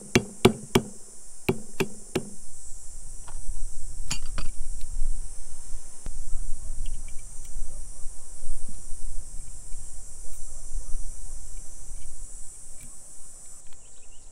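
Sharp metal knocks as turbocharger parts are tapped into place: about six quick knocks in the first two seconds, then one more a couple of seconds later. A steady, high insect drone runs underneath throughout.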